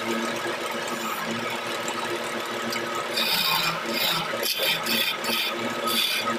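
Wood lathe running with a steady motor hum. From about halfway, a turning chisel cuts into the spinning gamari-wood blank in about six short scraping passes.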